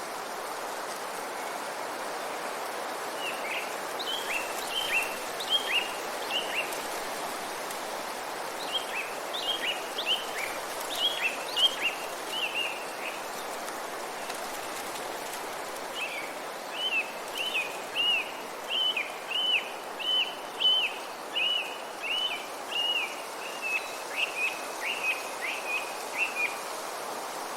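A songbird singing three bouts of quick, repeated short notes, the last one longer, over a steady rushing background of the woods.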